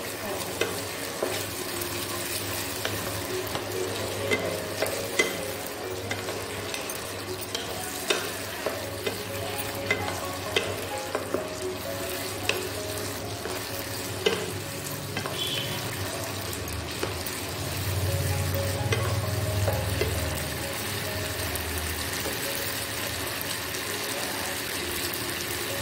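Onions and green capsicum sizzling in chilli and soya sauce in a nonstick wok while a spatula stirs them, with scattered knocks and scrapes of the spatula against the pan through the first half. A low hum swells briefly a little past the middle.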